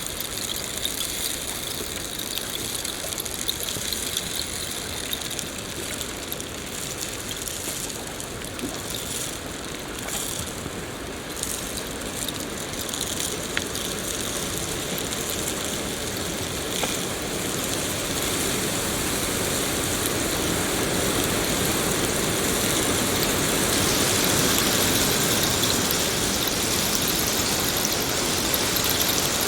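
Rain falling: a steady hiss with scattered sharp drop ticks, growing somewhat louder in the second half.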